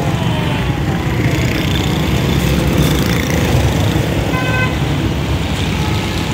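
Heavy city traffic: a large bus's engine running close by among motorcycles and cars, with a short horn honk about four seconds in.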